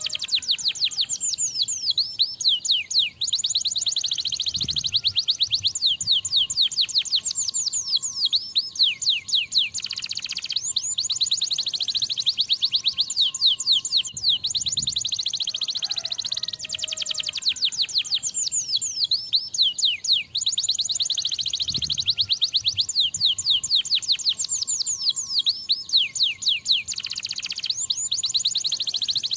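Canary in full song, singing long rapid trills of fast, repeated down-sweeping notes, phrase after phrase with only brief breaks.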